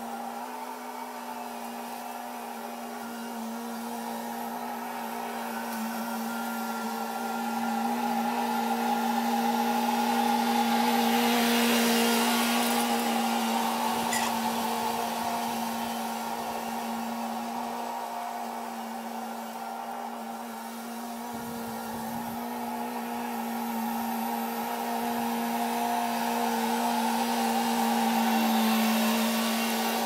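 Kubota MX5100 tractor's diesel engine running steadily while it pulls a landscape rake, swelling louder about ten seconds in and again near the end as the tractor works closer.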